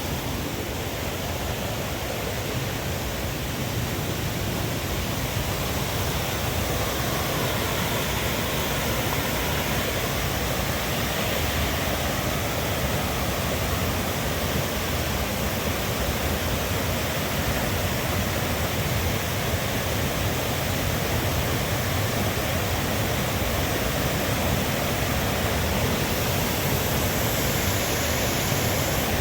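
A river running high after heavy rainfall, its water rushing loudly in a steady, unbroken rush.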